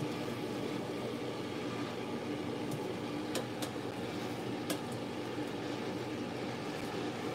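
Metal tongs clicking a few times against an air fryer basket while battered catfish fillets are turned over, over a steady appliance hum.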